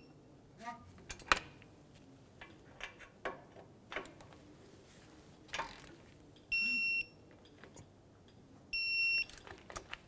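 Snap-on digital torque wrench beeping twice, about two seconds apart near the end, each a steady half-second tone, signalling that the caliper bracket bolt has reached the set 80 ft-lb. Light ratchet clicks and tool knocks come in between.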